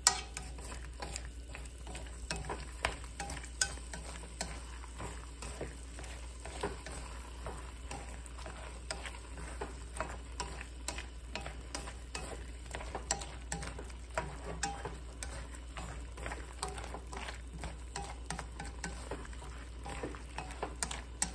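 Sliced bitter melon and egg frying in a stone-coated wok, stirred and tossed with wooden chopsticks: a soft sizzle with frequent light clicks and taps of the chopsticks against the pan.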